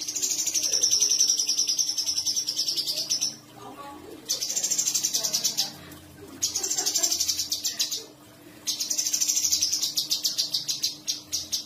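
Cucak cungkok singing: sharp, fast rolling trills in four bursts of two to three seconds each, separated by short pauses.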